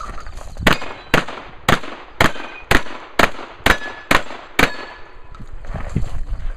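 Nine shotgun shots fired in quick succession, about two a second, each a sharp crack with a short echo, the first coming under a second after a brief start beep from the shot timer.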